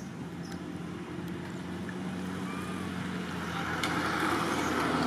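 A motor vehicle's engine running steadily and growing louder, with a hiss that swells over the last second or two as it draws closer.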